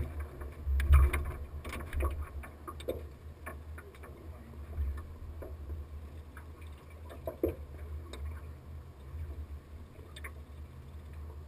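Low rumble of a small aluminium fishing boat on the water, with scattered knocks and clicks as anglers move about the hull and handle their rods and reels; the loudest knock comes about a second in.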